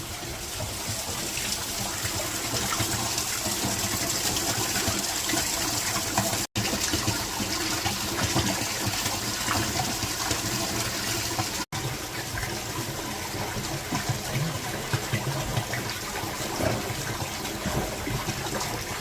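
Spring water flowing and splashing steadily, with two very short drops to silence about six and a half and eleven and a half seconds in.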